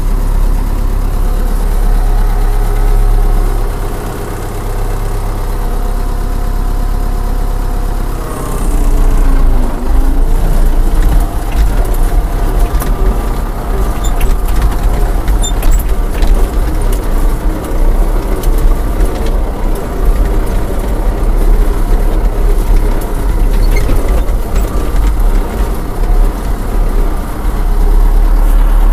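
Belarus MTZ 95.5 tractor's diesel engine running, heard from inside the cab. About eight seconds in, the engine note dips and comes back up, and it then runs a little louder and more unevenly.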